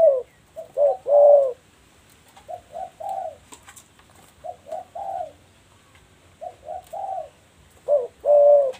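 Spotted doves cooing: repeated short phrases of three or four coos each. The loud phrases come at the start and again near the end, with fainter phrases between.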